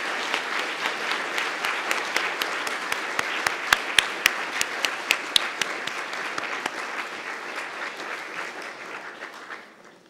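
Audience applauding: a dense patter of many hands clapping, with a few louder nearby claps about four seconds in, cut off shortly before the end.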